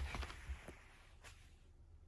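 A dog's claws tapping faintly on the floor a few times in the first moment, then near silence: room tone.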